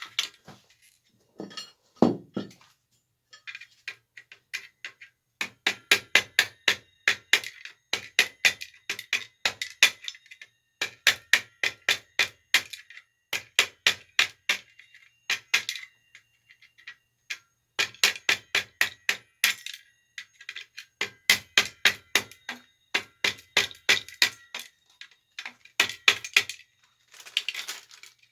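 Small tactile switches being worked apart by hand: runs of rapid, sharp little clicks and taps, several a second, in bursts of a second or two with short pauses between.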